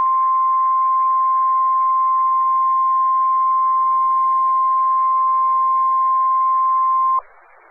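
NOAA Weather Radio 1050 Hz warning alarm tone: one loud, steady pitch over radio hiss, which cuts off suddenly about seven seconds in, leaving only faint hiss. The tone signals that a warning broadcast follows.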